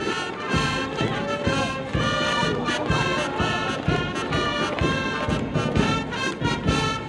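Brass-led band music with a steady beat.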